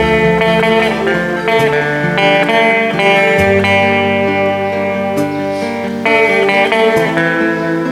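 Guitar playing a melodic instrumental tune: single notes changing over held lower notes.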